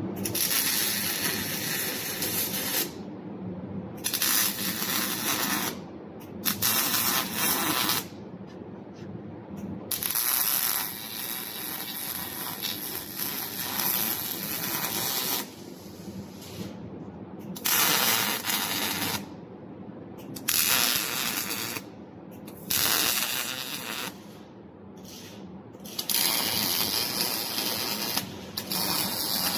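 MIG welder arcing in a series of short welds, each a steady crackle lasting one to several seconds, with brief pauses between them.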